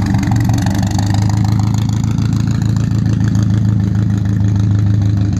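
Engine of a vintage Delage Grand Prix racing car running with a deep, even drone as it pulls away.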